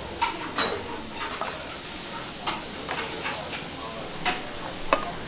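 A spoon clicking and scraping against a stainless steel bowl as chopped salad is tipped out, a handful of separate taps, over a steady sizzling hiss of food frying.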